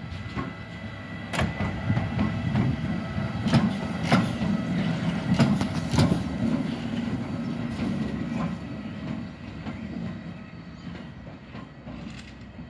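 Siemens Vectron electric locomotive running light at low speed: steel wheels rumbling on the rails with a few sharp clicks over the rail joints and points, loudest as it passes and fading as it moves away.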